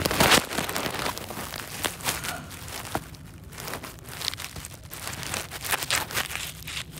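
Grass rustling and crackling against a phone held at ground level, mixed with handling noise on its microphone, in irregular bursts with the loudest right at the start.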